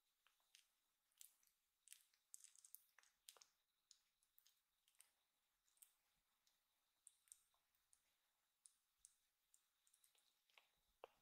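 Faint, irregular wet clicks and smacks of a young kitten licking and nibbling its own paw.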